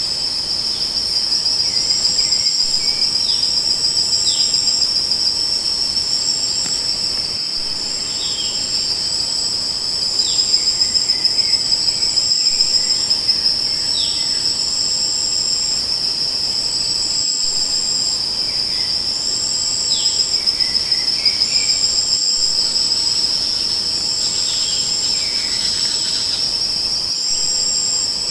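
Crickets trilling in a continuous high-pitched chorus, with short higher chirps repeating about once a second over it and occasional brief falling chirps.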